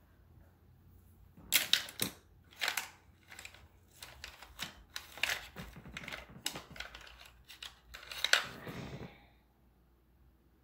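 An irregular run of sharp clicks and taps from small hard objects being handled. It starts about a second and a half in and stops about nine seconds in.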